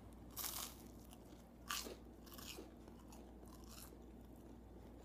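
Biting into and chewing a slice of toast: four short, faint crunches, the loudest about half a second in and just under two seconds in.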